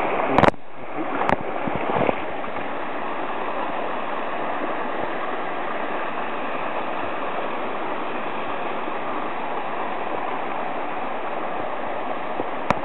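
Swollen mountain stream rushing steadily over rocks. There are a few sharp clicks in the first two seconds and one more near the end.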